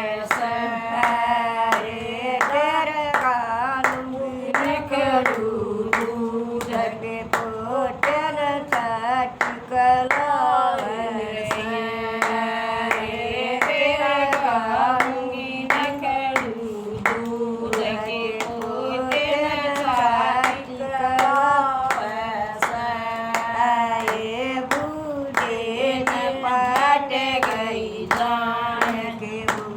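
A woman singing a Haryanvi bhajan (folk devotional song), with hand claps keeping a steady beat.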